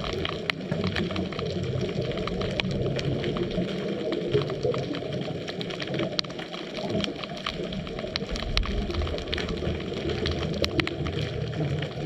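Underwater ambience picked up by a GoPro inside its waterproof housing during a scuba dive: a muffled, churning low rumble with many scattered sharp clicks.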